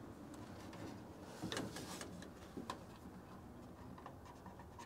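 A few faint clicks and light taps from a marker being used and handled on a plastic hood bug deflector while drill spots are marked: a small cluster of ticks about a second and a half in, and a single click just before three seconds.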